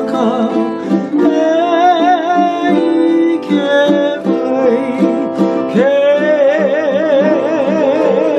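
A man singing a Hawaiian song to his own strummed ukulele, holding long notes with a wavering vibrato; the longest starts about six seconds in.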